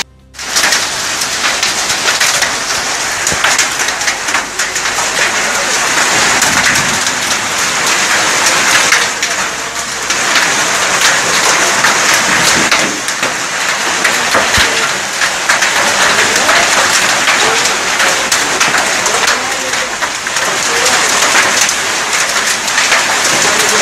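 Heavy rain mixed with hail pelting the ground: a dense, steady patter of countless small impacts.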